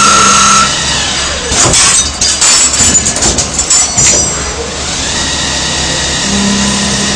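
CNC polygon lathe running with a steady whine that cuts off suddenly just after the start. A few seconds of irregular knocks and clattering follow, then a steady machine hum.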